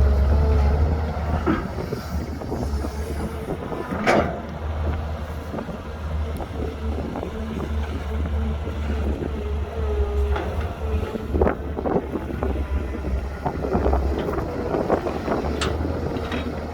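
Heavy earthmoving machinery's diesel engine running steadily with a low rumble, broken by scattered knocks and clanks, the sharpest about four seconds in.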